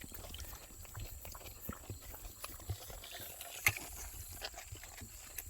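Calf sucking milk from a bottle: soft, irregular sucking and slurping clicks, with one sharper knock a little past halfway.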